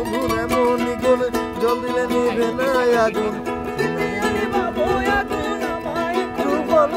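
Ukulele playing the accompaniment to a Bengali folk song, plucked and strummed, with a wavering melody line over it.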